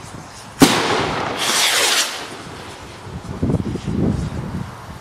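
Fireworks going off: a shell bursts with a sharp bang about half a second in and its echo rolls away, followed a second later by a longer hissing burst. Low rumbles come near the end, and another sharp bang comes right at the end.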